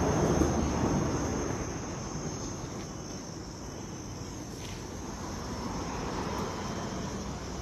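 Compressed-air paint spray gun hissing steadily while spraying primer, with a thin high whistle over the hiss. It is louder in the first second or two, then settles lower.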